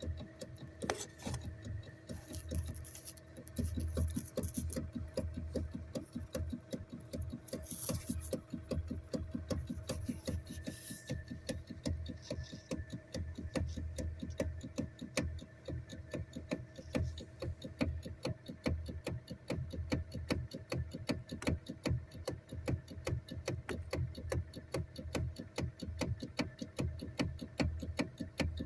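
Fast, evenly spaced ticking knock, several clicks a second and steady throughout, over a faint steady hum: the knock that the owner hears in the steering of a 2013 Hyundai Elantra.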